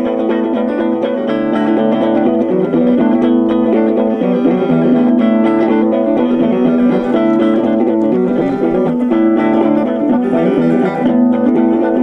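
Background music led by a plucked guitar playing a continuous run of notes.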